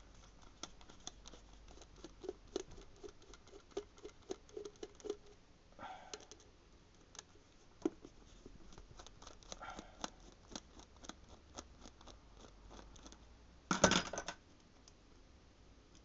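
Screwdriver working the two screws out of the bottom of a small carburettor's float bowl: a run of small metallic clicks and scrapes, with brief squeaks twice. A louder clatter about 14 seconds in is the loudest sound.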